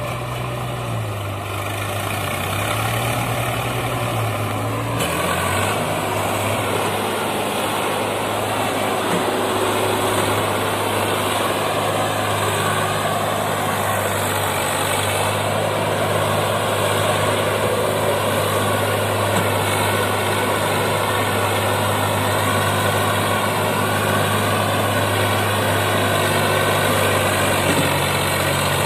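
Swaraj 744 tractor's diesel engine running hard under heavy load, pulling a fully loaded trolley out of soft ground. The sound runs steadily on with no break.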